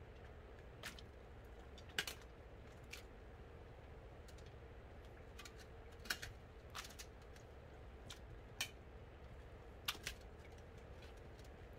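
Scattered light clicks and taps of a metal spatula against a stainless steel pot and basin, about ten in all, with wet mushrooms dropped into water, over a low steady hum.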